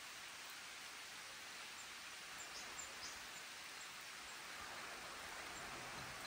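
Faint outdoor ambience: a steady, even hiss of open-air background noise, with a few faint, short high chirps between two and three seconds in.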